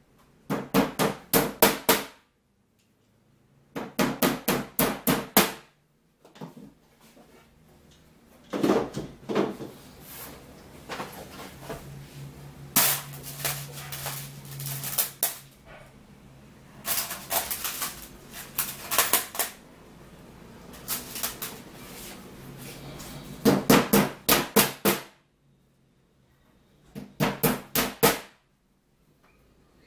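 Claw hammer striking a flat-pack wooden drawer under assembly: about seven quick bursts of several sharp blows each, with short pauses between bursts.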